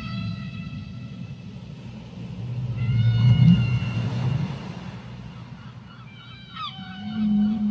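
Whale calls: drawn-out high cries with several overtones, about three seconds in and again from about six seconds, some bending downward in pitch, over a constant low rumble.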